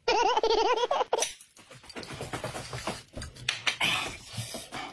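Eating at the table: chopsticks clicking and knocking against porcelain bowls, with chewing. A brief wavering pitched sound, like a voice, comes in the first second.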